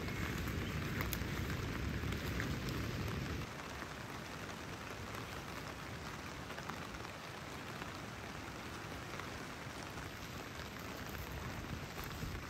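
Steady rain falling, an even hiss with no single drops standing out. A heavier low rumble runs under it for the first three seconds or so, then stops.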